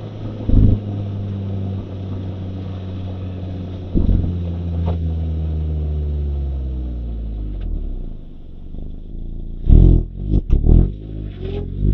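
Mazda MX-5 (ND) Roadster's 1.5-litre four-cylinder engine running steadily, its note falling in pitch for a few seconds as the car slows. Near the end come a cluster of loud thumps, and the engine note rises again.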